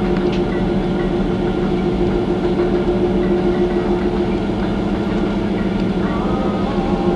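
Steady drone of a ship's engines and machinery: an unbroken hum with a couple of constant low tones over a rushing noise.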